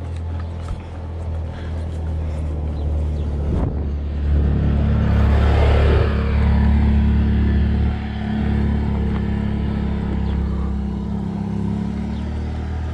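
Quad bike engine running steadily, swelling to its loudest about five to six seconds in as it comes close, then easing off as it moves away down the road.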